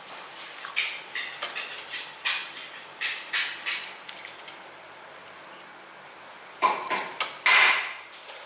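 Irregular clatters and knocks, several in quick succession, then two louder scraping-clattering bursts near the end, like utensils and containers being handled.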